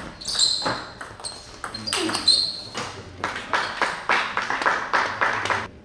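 A table tennis ball clicking off the bats and pinging on the table during a fast rally that ends about two seconds in. This is followed by a stretch of clapping and voices from the hall.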